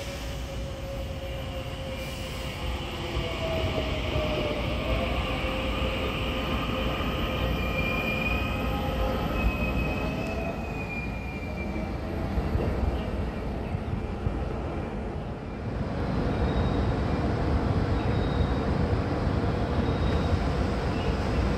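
Taiwan Railway electric commuter train rolling in along the platform and braking to a stop: a steady rumble of wheels on rail, with thin squealing tones that slide in pitch. About two-thirds of the way through, a louder, steady rushing noise takes over as the train stands.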